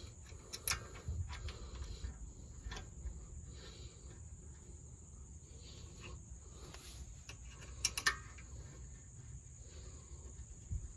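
A few sharp metallic clicks and clinks, two close together near the end being the loudest, over a steady high-pitched insect drone and a low rumble.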